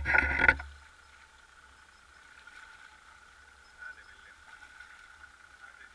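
A short loud rush of noise about half a second long, then a boat motor running faintly with a steady high whine.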